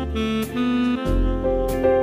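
Instrumental background music with changing melody notes over a steady beat.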